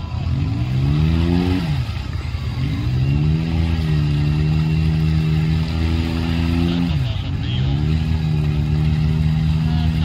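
Off-road vehicle's engine revving hard and unevenly: the revs drop and climb back three times, at the start, about two seconds in and about seven seconds in, holding steady high revs in between.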